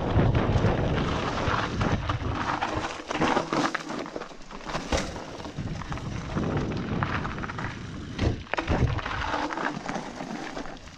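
Mountain bike riding fast down a dirt forest singletrack: tyre noise on soil and dry leaves, with many small rattles and knocks from the bike over bumps and roots and a couple of heavier thuds about two thirds of the way in. Low wind rumble on the microphone, strongest at the start.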